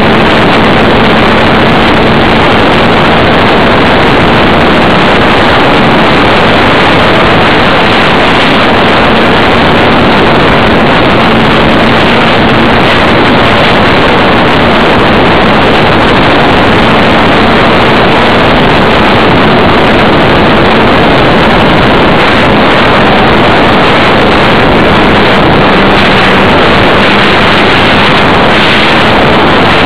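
Electric brushless motor and propeller of an E-flite Funtana 300 foam model plane in flight, heard through a camera mounted on its fuselage: a loud, steady motor-and-propeller buzz mixed with rushing wind, the hum dipping slightly in pitch near the end as the throttle eases.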